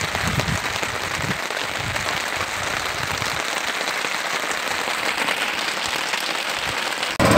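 Heavy rain falling on the open sea, a steady dense hiss. Just before the end it cuts abruptly to a louder katinting boat engine running.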